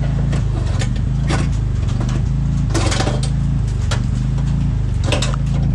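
Scattered clicks and knocks of metal door parts being handled, over a steady low mechanical hum like a running engine.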